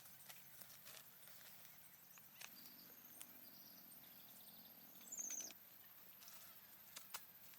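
Near silence: faint outdoor ambience with scattered light clicks and one short, high, falling chirp about five seconds in.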